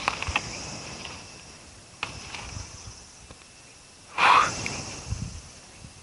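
A few sharp snaps and a short loud rustle just after four seconds in, of cut pine branches and brush being handled, over a steady high drone of insects.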